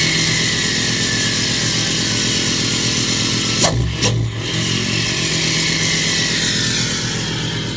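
6.7 Cummins turbo-diesel inline-six running steadily, with a turbo whine that slowly falls in pitch. Two sharp clicks come a little under four seconds in.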